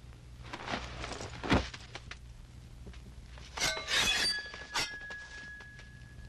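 Film sound effects of sword blades clashing. A few sharp hits come about a second and a half in, then a quick flurry of metallic clangs around four seconds in, leaving a ringing tone that hangs on.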